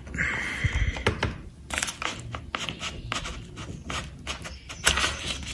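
Hands moving a MacBook Pro laptop and its cable about on a table. A scraping rub in the first second, then a string of small knocks and clicks.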